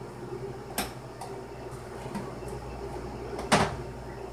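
Kitchen items knocked and clicked as they are handled on the counter: a light knock about a second in and a louder one near the end, over a steady low hum.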